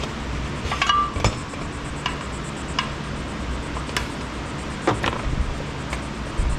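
Hand tools and metal parts clinking and knocking while a gasket is worked off a cast-aluminum part. The separate sharp clicks come every second or so, with a cluster at about a second in, over a steady low hum.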